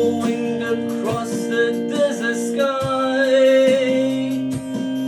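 Acoustic guitar strummed steadily while a voice holds long, wavering sung notes.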